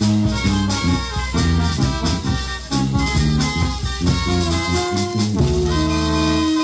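Marinera music played by a brass band, in a steady lively rhythm of held horn notes over a deep bass line.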